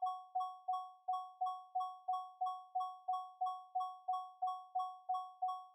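Doorbell bell struck over and over, about three times a second: each strike a clear two-pitched ding that fades quickly, the striker hitting the bell cup.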